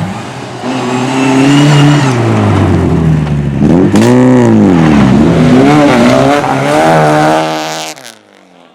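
Race car engine revving hard, its pitch rising and falling again and again as it is driven through gear changes and lifts, climbing high near the end before cutting off suddenly about eight seconds in.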